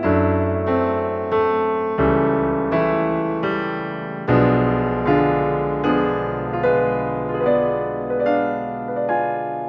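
Background instrumental music: a slow, even line of struck keyboard-like notes, about one every two-thirds of a second, each fading out, over bass notes that change every couple of seconds.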